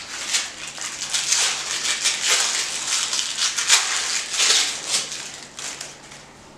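Crinkling and rustling of packaging wrap as it is pulled off a coiled headphone cable, in irregular bursts that fade out near the end.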